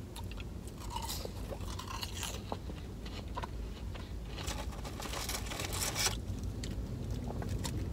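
A person chewing a crunchy, thick fast-food fry dipped in ranch, with soft, irregular crunches, over a low steady hum.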